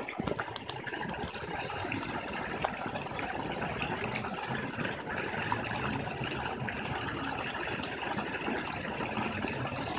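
Steady splashing of a dolphin-shaped fountain's water jet falling into a shallow wading pool, with a few faint clicks in the first second and a half.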